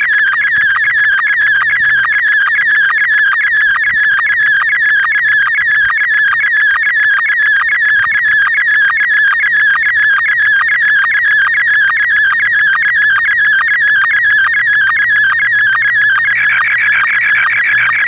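Slow-scan television (SSTV) picture signal from the Yaesu VX-6 handheld's speaker: a loud, fast-warbling tone cut by a steady, rapid tick of line sync pulses, sending a test image line by line. About 16 seconds in the tone shifts higher and brighter as the picture content changes.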